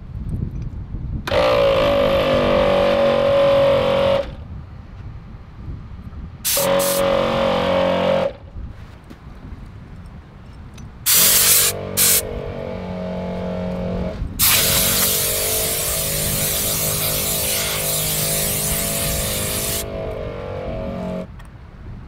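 Truck-mounted air compressor running in spells, with a steady hum and loud hissing air from its hose. There are two short sharp blasts of air a little past halfway. The compressor then hums steadily while air hisses for several seconds, inflating a motorcycle's front tyre.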